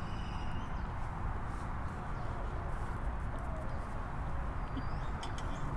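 Steady low background rumble with faint, short bird calls and a few light clicks near the end.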